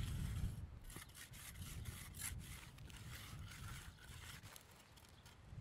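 Steel hand edger scraping along the edge of wet, freshly poured concrete in short, irregular strokes.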